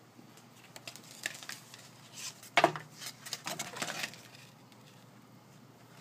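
Vertical window blind slats clattering and knocking together as they are pushed aside: a run of light rattles and clicks, with one louder knock about two and a half seconds in.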